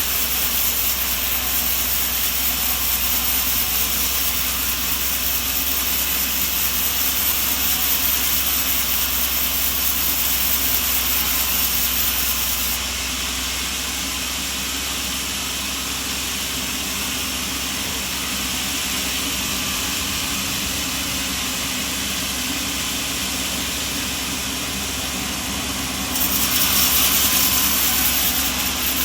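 Steady machinery noise with a strong high hiss, changing abruptly in level and tone twice, at about thirteen and about twenty-six seconds in.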